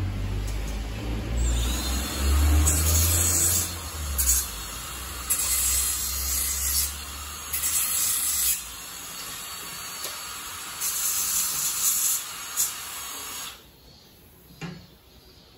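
Short bursts of high-pitched hissing, about four of them, each lasting a second or so, like a spray being squeezed on and off. A low rumble runs under the first half, then it drops to a quiet background near the end.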